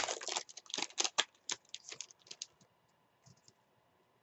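Stack of trading cards being flicked through by hand: quick clicks and papery slides of card against card. A sharp click opens a busy run of them in the first two and a half seconds, then only a couple of faint ticks.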